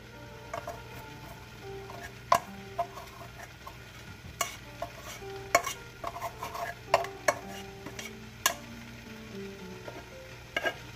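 Plastic rice paddle scraping and knocking against the rim of a metal pot as sticky cooked glutinous rice is scooped out into a pan of liquid, with a sharp knock every second or so.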